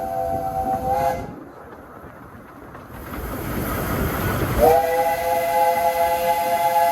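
Steam locomotive chime whistle sounding a chord of three steady notes, which stops about a second in. A rush of steam then builds and the whistle sounds the same chord again for the last two seconds or so.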